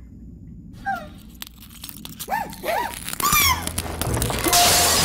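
A cartoon character's short squeals rising and falling in pitch, with knocks, then a loud crash of glass shattering near the end as a vehicle window is smashed with a glass bottle.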